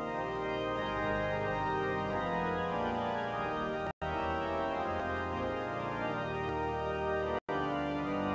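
Pipe organ playing a hymn in held chords, with no singing. The sound cuts out for an instant twice, about four seconds in and near the end.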